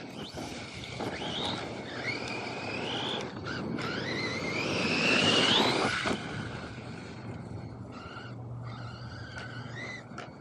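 An electric RC car's motor whining, rising in pitch through several bursts of acceleration over dirt and gravel. The longest and loudest climb comes about five seconds in, then the motor eases back to a quieter steady hum.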